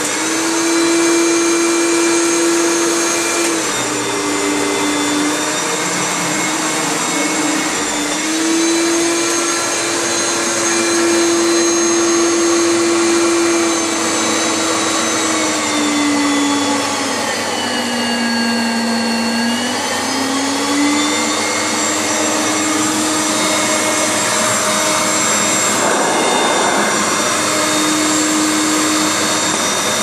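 Hoover Turbomaster Electronic U5080 upright vacuum cleaner running on carpet with a steady motor whine. The whine drops in pitch and comes back up several times as the electronic motor speed is turned down and up again, lowest a little past the middle.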